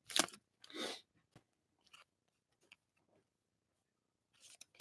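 Faint handling of trading cards and their packaging: two short rustles in the first second, a few light ticks and taps, and another rustle near the end.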